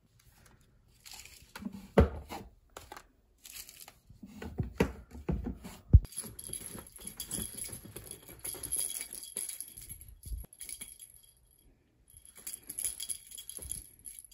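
A Siamese cat pouncing on a feather wand toy on a bed: blankets rustling, a couple of sharper thumps from its landings, and a light jingling from the toy through much of the play.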